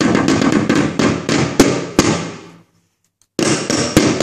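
Small toy drum being beaten rapidly and loudly with a stick by a child, in two flurries of hits separated by a short break about two and a half seconds in.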